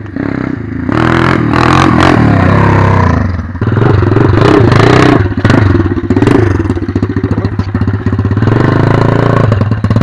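Pit bike's small engine running close by, revved up and down as the bike rides up, with a short let-off partway through and some clatter from the bike.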